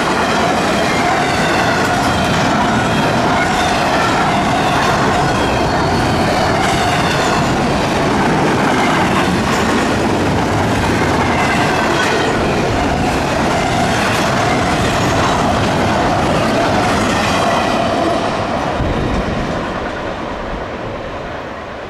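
Double-stack intermodal freight train passing close at speed: a loud steady rumble of steel wheels on rail, with rhythmic clickety-clack over the rail joints and a faint wavering wheel squeal. It fades over the last few seconds as the end of the train moves away.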